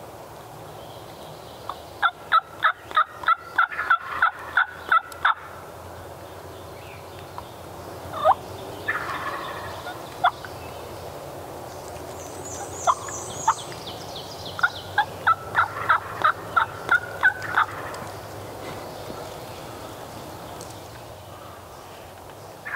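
Wild turkey yelping: a run of about a dozen sharp, evenly spaced notes at roughly four a second starting about two seconds in, a few single notes and a short cluster in the middle, then a second run of about a dozen notes around fifteen seconds in.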